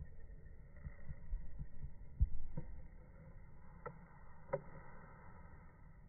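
Handling noise on a smartphone microphone: a run of low thuds about a second in, the loudest just after two seconds, then three faint clicks over a low rumble.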